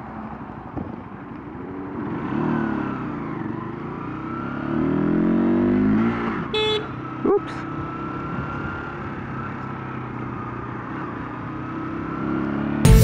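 Honda CBR125R's single-cylinder engine accelerating as the bike rides in traffic: the engine note rises in pitch twice, then holds steady while cruising.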